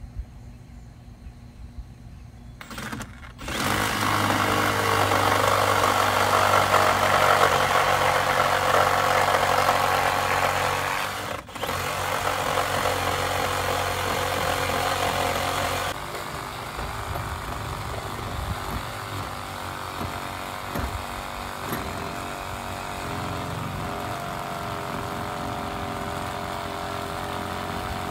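Cordless reciprocating saw starting about three seconds in and cutting through a weathered wooden 4x6 beam, with a brief stop just before halfway. After about 16 seconds the sawing goes on quieter, with irregular knocks.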